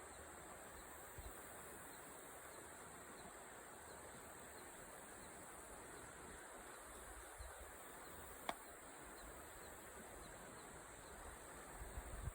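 Faint steady rush of the Wolf River, with an insect chirping in a regular faint pulse high above it. A single sharp click comes about eight seconds in, and a few soft low bumps near the end.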